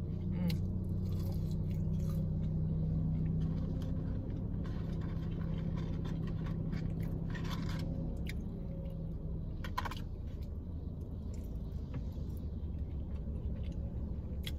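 A steady low motor drone, strongest in the first eight seconds and fading by about ten seconds in. Over it, french fries are chewed and crunched, with a few short crackles of the paper fry carton.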